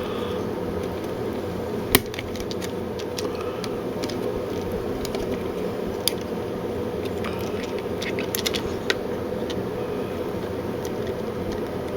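Small plastic clicks and taps from the parts of a Nintendo 64 controller being handled and fitted together. There is a sharp click about two seconds in and a few more later, over a steady room hum.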